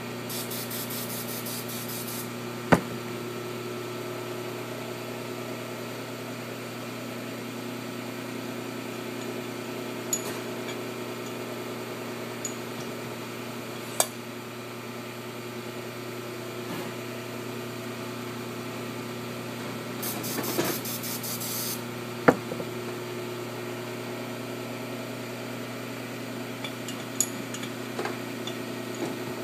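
Steady hum of workshop machinery, with a few sharp metallic clicks from handling parts on a diesel cylinder head, three of them loud. There are two short hissing bursts, one at the start and one about twenty seconds in.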